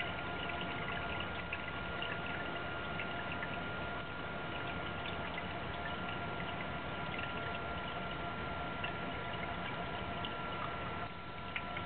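Basement sump pump running, a steady motor hum under water pouring and trickling in the sump pit, with a brief dip near the end. The pump cycles about every two minutes even without rain.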